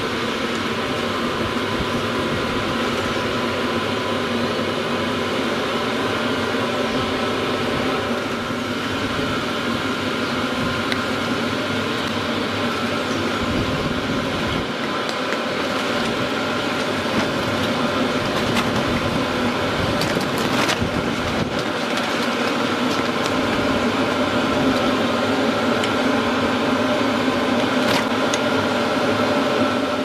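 Hcalory TB2S 8 kW portable diesel air heater running: a steady blower rush with a faint fan hum and no igniter ticking, growing slightly louder in the second half. A few faint clicks fall around two-thirds of the way through and again near the end.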